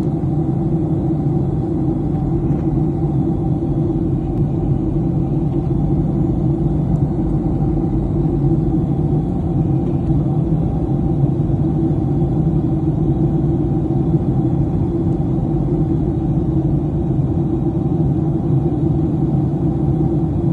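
Steady cabin noise of a SpiceJet Boeing 737 in flight, heard inside the cabin by the window: the turbofan engines and rushing air make a constant low drone that neither rises nor falls.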